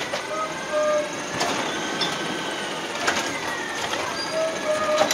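Automated side-loader garbage truck, natural-gas powered, running while its hydraulic arm lifts a wheelie bin and tips it into the hopper, with clattering and a few short high tones.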